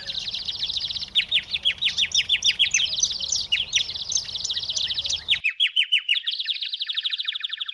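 Small songbird chirping in a fast, continuous run of short, high, downward-sliding notes, several a second. A faint background hiss under it stops abruptly a little over two-thirds through while the chirping continues.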